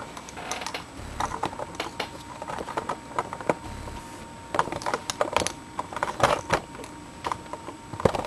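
Irregular light clicks and taps of hard plastic being handled, in quick scattered clusters: a plastic action figure and its parts being moved about and set down.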